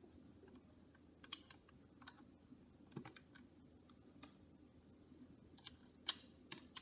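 Faint, scattered clicks of plastic LEGO tiles and bricks being handled and pressed into place, about eight at irregular intervals.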